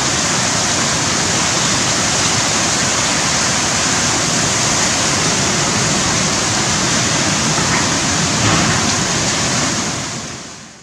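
Torrential rain and strong tropical-cyclone wind, a steady loud rush of pouring rain with the wind, fading out near the end.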